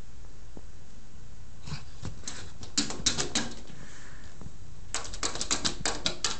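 Pitbull's claws clicking and tapping in quick runs, once about two seconds in and again about five seconds in.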